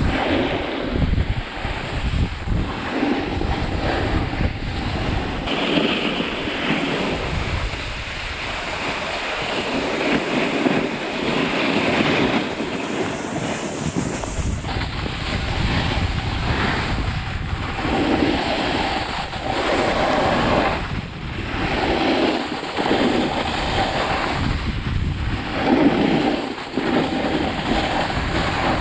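Wind buffeting the microphone over the rasp of snowboard edges scraping across packed snow, swelling and fading every few seconds.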